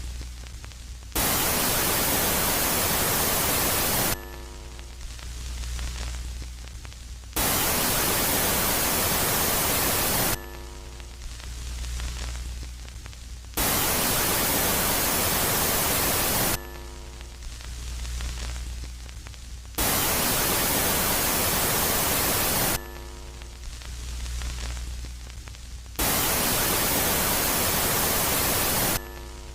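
Electronic space-ambience audio meant as the sound of Jupiter's moon Megaclite, switching between a quiet phase and a loud phase. Five times, harsh even static cuts in abruptly, lasts about three seconds and cuts off; in between come a low hum with faint steady tones and a hiss that swells and fades.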